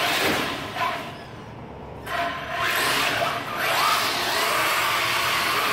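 Traxxas Slash 4x4 RC truck's electric motor whining and its tyres scrubbing on concrete as it drifts. The noise drops off about a second in, then picks back up with a brief rising whine.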